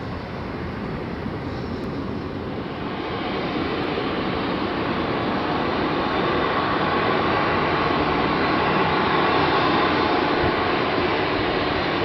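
Four CFM56 jet engines of an Airbus A340-300 airliner rolling out on the runway after landing, a steady rushing jet noise that grows louder over the first several seconds as the aircraft comes nearer.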